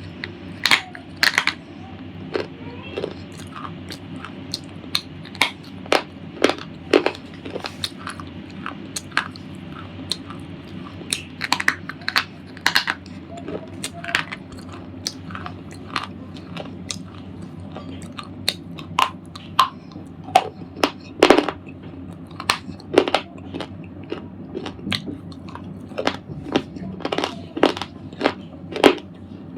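Red slate ball being crunched: irregular sharp crunches and cracks, a little more than one a second, over a steady low hum.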